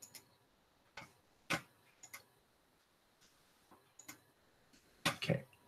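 Computer mouse clicking: scattered single clicks at uneven gaps of about half a second to a second and a half, with two in quick succession near the end.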